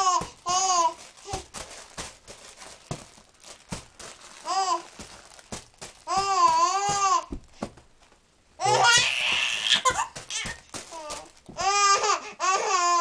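Baby babbling and squealing giddily in high, wavering bursts with pauses between, with a louder, breathier outburst about nine seconds in.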